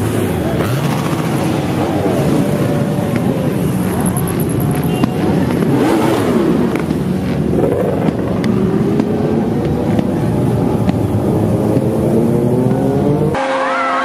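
Many motorcycles riding past in a procession, a dense mix of engines revving, their pitch rising and falling as bikes pass. Near the end the sound cuts abruptly to a steadier, held engine note.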